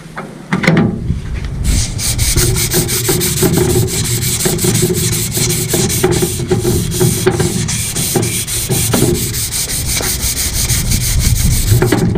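A strip of abrasive cloth is pulled rapidly back and forth around a steel cylinder from a bench vise, shoeshine style, sanding off old grease and crud. The rasping starts about half a second in and settles into a fast, even stroke rhythm that keeps going.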